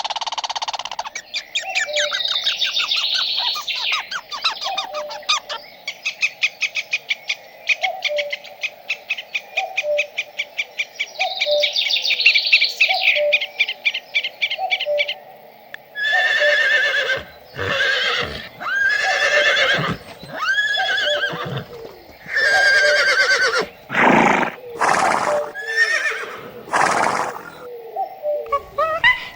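Animal calls. First a fast rattling trill with a soft note repeating about once a second, then a run of loud drawn-out calls, each about a second long.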